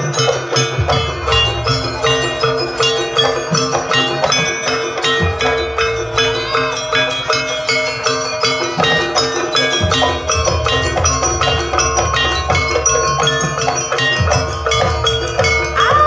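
Javanese jaranan gamelan music: metallophones striking quick ringing notes over drums, with one steady note held underneath.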